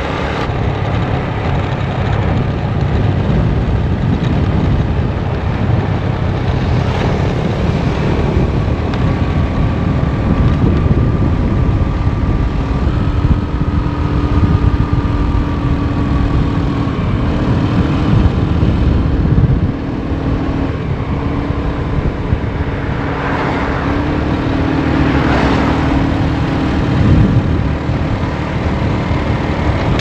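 Motor scooter engine running while riding along a road, its note shifting in pitch a few times with speed, under heavy rushing noise from wind and the road.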